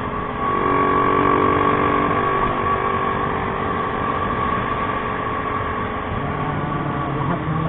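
Motorcycle engine running while riding at road speed, with steady wind and tyre noise and a thin steady whine held under it.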